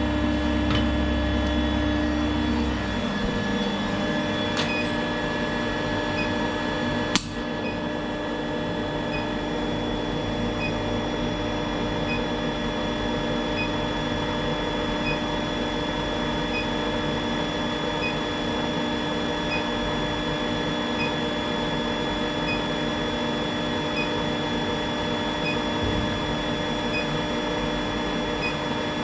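Induction heater running: a steady electrical hum with several steady high tones and faint, evenly spaced pips. A deeper hum drops away about three seconds in, and there is a single sharp click about seven seconds in.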